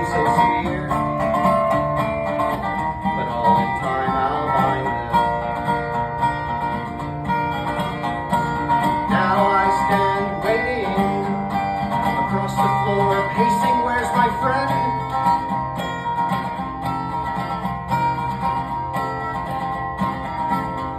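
Instrumental song intro: plucked acoustic strings in a country/bluegrass style over a steady bass, with a wavering lead line between about nine and fifteen seconds in.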